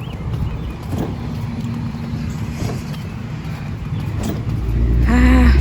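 Motor vehicle engine running at low speed, the low rumble growing louder about five seconds in.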